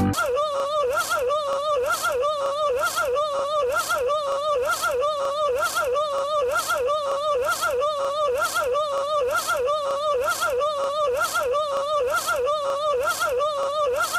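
A short, wavering high-pitched sound looped over and over, repeating about every 0.6 s with a small click at each repeat.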